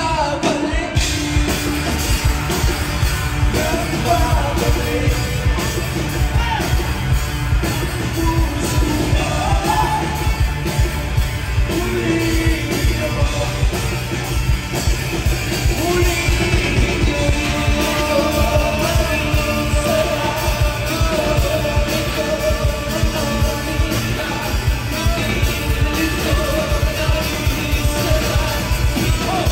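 Live rock band playing, with a lead vocal singing over a steady drum beat.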